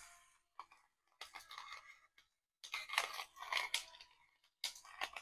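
Salt grinder crushing pink salt crystals in three short spells of gritty, crunching clicks.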